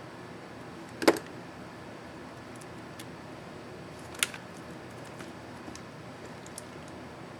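Plastic keycap and key retainer clips on an ASUS X551C laptop keyboard snapping: a loud snap about a second in, a sharper click about four seconds in, and a few faint ticks between and after.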